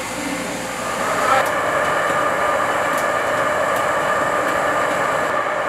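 Steady hiss of steam escaping from the rice steamer, with a continuous machine hum under it, a little louder after about a second.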